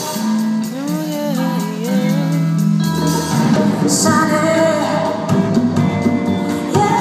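Live band with a string orchestra playing a pop song, with a woman singing into a microphone from about three seconds in.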